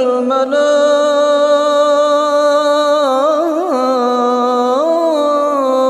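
A reciter's voice chanting the Quran in melodic tajweed style, drawing out one long sustained vowel with ornamented pitch turns about three seconds in and again near five seconds.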